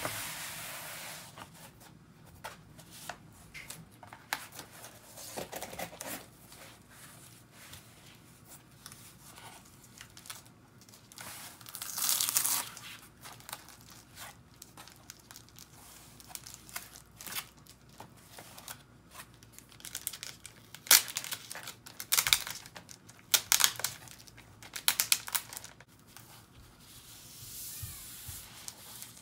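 Cardboard mailer and paper art prints handled close up: rustling, crinkling and sliding of paper and card. A longer tearing sound comes about twelve seconds in, and a run of sharp crackles and taps in the last third.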